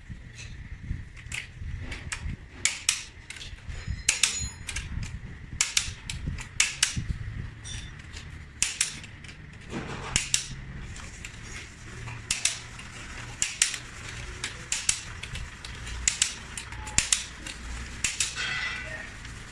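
Click-type torque wrench clicking again and again as the main bearing cap bolts of a Mitsubishi 4D33 diesel block are tightened on the final 75 ft-lb pass. The sharp metallic clicks come roughly once a second, some in quick pairs.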